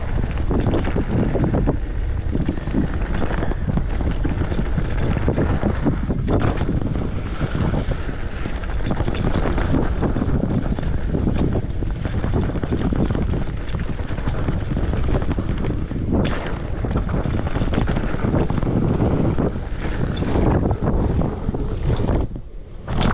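Wind buffeting the microphone of a camera riding along on a mountain bike at speed, with frequent short knocks and rattles throughout; the rush drops away briefly near the end.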